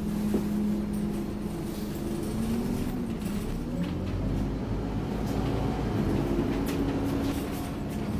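Scania OmniCity N230UD bus's five-cylinder diesel engine and drivetrain heard from inside the lower deck, a steady hum whose pitch dips about two seconds in and then climbs again from about four seconds in as the engine works up through its revs.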